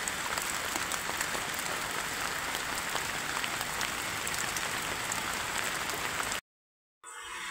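Heavy rain falling steadily: a dense hiss full of small drop patters. It cuts off abruptly a little after six seconds in, and after a moment of silence a fainter rain hiss comes back.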